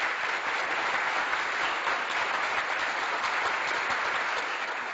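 Steady applause from a crowd, a dense patter of many hands clapping, fading in and out.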